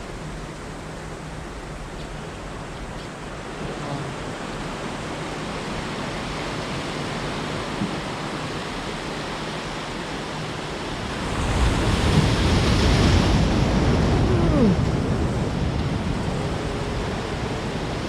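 Ocean surf washing in steadily, with a bigger wave breaking about eleven seconds in, loudest for a few seconds before easing off.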